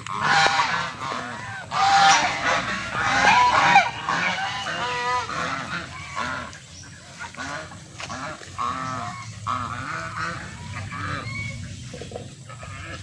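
A flock of white domestic geese honking, many calls overlapping and loudest in the first four seconds, then quieter, scattered honks continuing.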